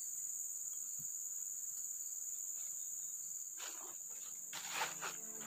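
Steady high-pitched insect chorus, with brief rustling of leaves and clothing about three and a half and five seconds in as a person leans forward in the undergrowth.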